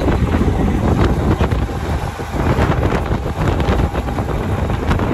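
Wind buffeting the microphone over a steady low rumble, with frequent brief gusts.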